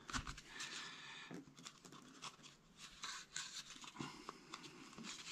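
Faint scratching and rustling of dry raffia and a needle being worked back through a stitching hole in a rolled birch bark container, with a few light clicks as the bark is handled.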